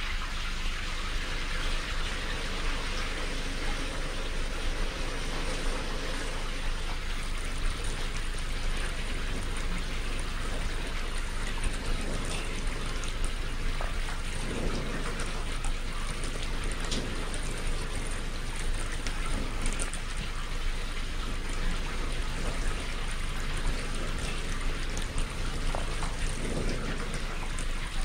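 Steady hiss of falling or spraying water, like heavy rain, with scattered small patters and a constant low hum underneath.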